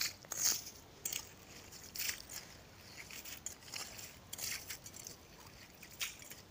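Metal ice skimmer scooping and scraping ice chips out of a fishing hole drilled through the ice: a run of short, irregular crunching scrapes.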